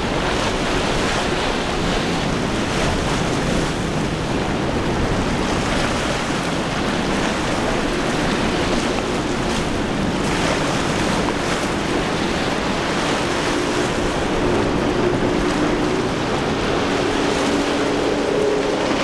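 Surf and rushing water with wind buffeting the microphone; in the second half a boat engine's steady hum comes in underneath and grows plainer toward the end.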